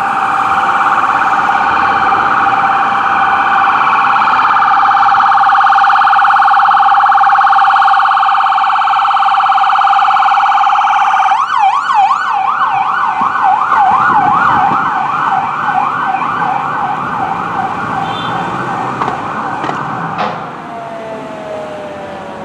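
Fire department emergency vehicle's electronic siren: a steady, fast-warbling tone that switches about eleven seconds in to a yelp rising and falling about two and a half times a second, then cuts off near the end, leaving a quieter falling tone.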